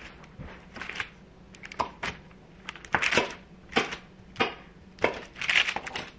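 Chef's knife cutting a tray of chocolate-topped bars into pieces: a series of short, sharp cuts, each one cracking through the hardened chocolate layer and knocking down onto the parchment-covered counter.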